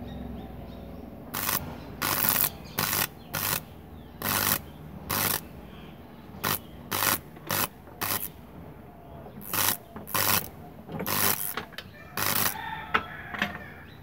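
High-voltage electric arc from a microwave oven transformer striking between two electrodes in more than a dozen short, irregular bursts, each a fraction of a second long.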